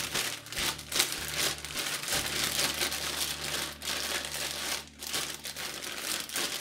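Zip-lock plastic bag crinkling and rustling as it is shaken and squeezed by hand, the sliced cucumbers and tomatoes inside shifting as they are mixed with salt, with a couple of brief lulls.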